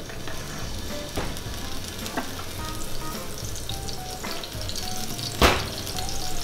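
Oil and garlic starting to sizzle in a small frying pan on a gas burner, a steady frying hiss, with a single sharp knock about five and a half seconds in.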